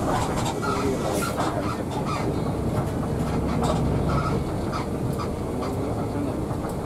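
Cabin noise inside a moving coach: a steady rumble of engine and tyres on a wet road, with occasional light ticks and rattles.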